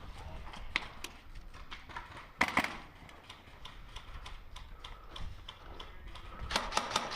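Airsoft rifle firing: scattered single shots, a louder pair about two and a half seconds in, then a rapid string of shots, about ten a second, near the end.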